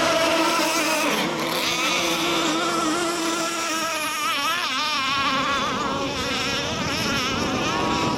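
Radio-controlled racing boats running at speed: a steady high motor whine whose pitch wavers up and down as the boats turn and pass, over the hiss of spray.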